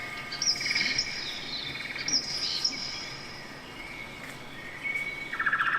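Birdsong: short, high chirps about half a second and two seconds in, a quick trill near one second, and a lower, rapid buzzy trill that starts near the end.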